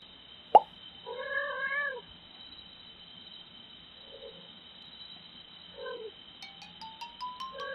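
A cat meowing: one long, loud meow about a second in, then two short, soft meows later. A sharp click comes just before the first meow, a steady high-pitched whine runs underneath, and a short rising run of tones sounds near the end.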